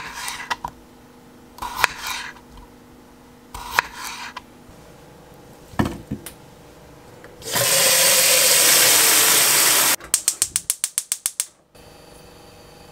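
A kitchen knife cutting through a raw potato onto a plastic cutting board, a few knocks of the blade over the first six seconds. Then a loud rushing hiss lasts about two and a half seconds, followed by a gas stove's igniter clicking rapidly, about ten clicks in under two seconds, before the burner settles into a quiet steady hum.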